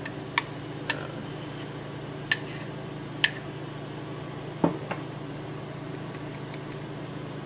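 Induction cooktop humming steadily as it heats an empty enameled cast-iron Dutch oven, with a few light clicks and clinks of a small metal scoop. A louder knock comes about four and a half seconds in as the scoop of beef tallow goes into the pot.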